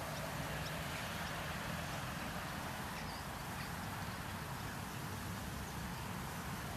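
Steady outdoor background noise with a low rumble of distant road traffic, and faint short bird chirps scattered through it.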